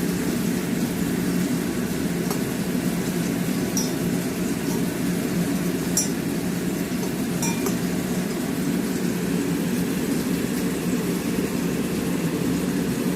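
A spoon clinking against a glass about four times over the first eight seconds while ginger and honey are stirred into hot water, over a steady low hum.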